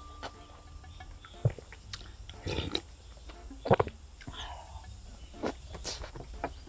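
Close-miked eating sounds: spoonfuls of chilled acorn jelly soup slurped and chewed, with a few sharp clicks. The loudest slurp comes near the middle.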